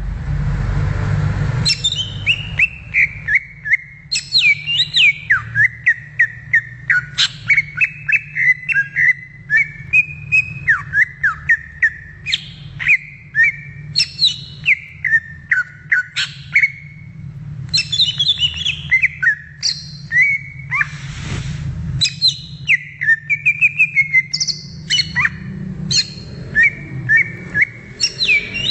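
Green leafbird (cucak ijo) singing a fast, unbroken run of varied chirps and whistled notes that slide up and down. A short burst of hiss comes at the start and again about 21 seconds in, over a steady low hum.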